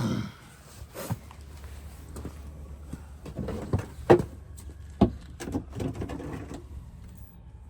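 Irregular sharp knocks and rattling clatter of tools and parts being handled during work on a car engine, over a low steady hum.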